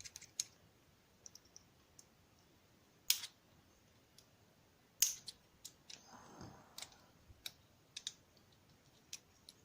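Small, sharp metallic clicks and taps of tweezers working on a DOM ix10 KG euro cylinder as its C-clips are taken off. Two clicks stand out, about three and five seconds in, with a brief soft scrape soon after the second.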